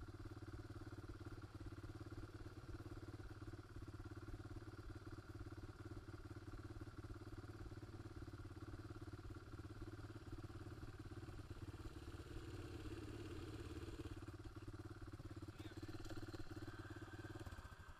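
ATV engine idling steadily with a fast, even pulse, then shut off about a second before the end, the sound cutting out abruptly.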